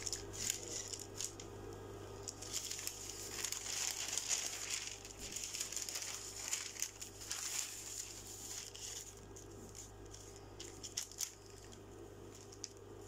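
Sheets of pattern paper rustling and sliding as they are handled, with scattered light pencil strokes as a pattern is traced onto paper.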